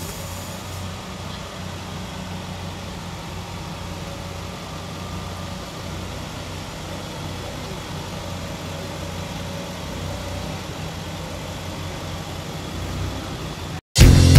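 Monster truck engine idling with a steady low rumble. It cuts off near the end and loud rock music starts.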